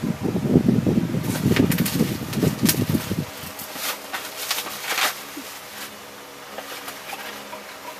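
Bubble wrap and plastic packaging rustling and crackling as it is pulled off a tripod stand. It is busiest in the first three seconds, with a few sharp crackles after that, then it settles.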